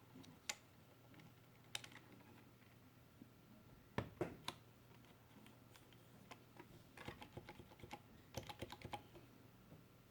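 Typing on a Ducky ONE 2 Mini 60% mechanical keyboard with Cherry MX Silent Red switches: faint, scattered keystrokes, a few sharper ones around four seconds in, then quick runs of keys between about seven and nine seconds.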